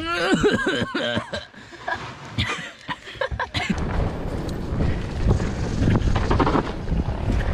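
Mountain bike ridden fast down a dirt trail: wind rushing over the helmet camera's microphone, with tyre noise and knocks from the bike over the rough ground. A short burst of voice comes in the first second or so.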